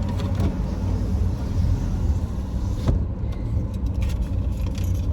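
Low, steady car rumble heard from inside the car, with a single sharp click about three seconds in.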